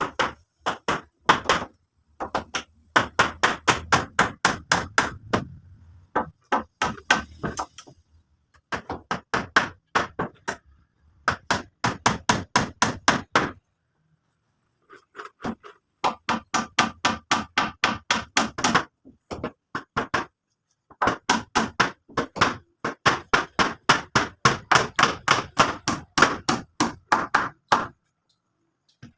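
Hammer blows in quick runs of about five or six strikes a second, broken by short pauses between runs.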